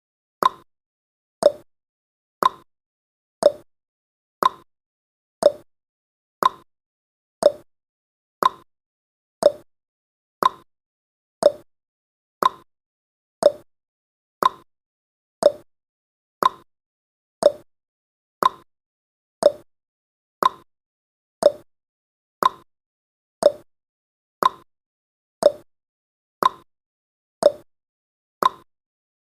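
Countdown timer's clock-tick sound effect: a short sharp tick once every second, even and unbroken.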